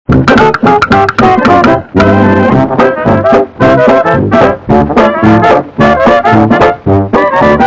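Background music led by brass instruments, playing short, punchy notes in a quick rhythm; it comes in abruptly at full volume.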